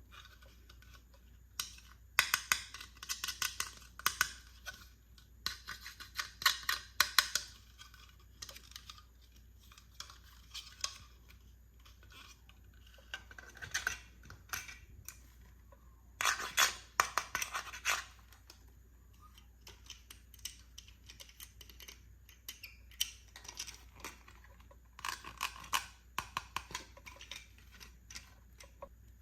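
Small plastic toy pieces and their packaging handled by hand, with rapid clicking and crackling in several bursts a second or two long and quiet pauses between them.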